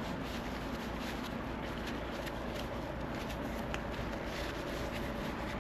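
Steady background noise with a few faint, light clicks and handling sounds scattered through it.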